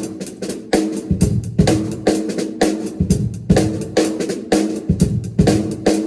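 Drum kit played in a steady groove: bass drum and snare hits with cymbals, about two strong strokes a second.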